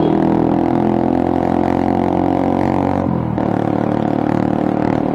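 Motorcycle with an aftermarket Akrapovic exhaust (semi-big elbow) running steadily under way, a smooth exhaust note. The engine note dips briefly about three seconds in, then steadies again.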